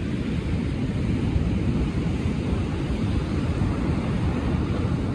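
Wind rumbling on the microphone over the steady wash of surf breaking on the beach.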